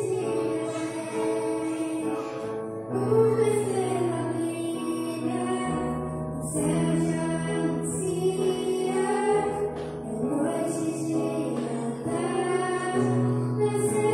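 Children's choir singing a Christmas song, led by a woman's voice on a microphone, over a small band with piano and bass.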